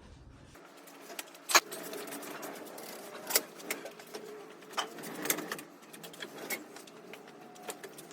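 Light metallic clicks and clinks at irregular intervals, about ten of them, from hand tools being handled.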